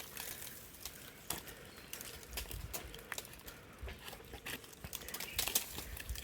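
Dry plant debris crackling and rustling in irregular sharp clicks, with a few low bumps from handling.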